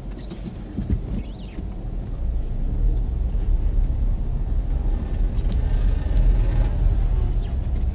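A car driving: a steady low engine and road rumble that grows louder about two seconds in, with a few faint ticks above it.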